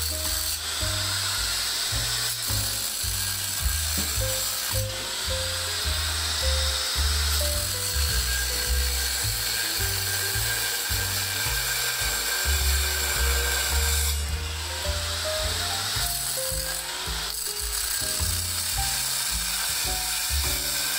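Angle grinder cutting through wrought-iron scrollwork: a continuous high grinding hiss whose strength shifts several times as the disc bites, heard under background music with a changing bassline.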